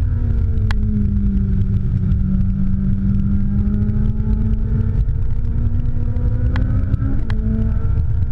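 Ferrari 458 Italia's 4.5-litre V8 heard from inside the cabin at track speed, over heavy road and wind rumble. The engine note drops right at the start, climbs slowly through a corner, then steps up sharply about seven seconds in, with two sharp clicks.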